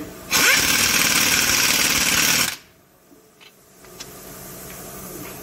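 Pneumatic impact wrench running in a rapid rattle for about two seconds as it drives a cylinder head bolt tight, then stopping abruptly; a few faint clicks follow.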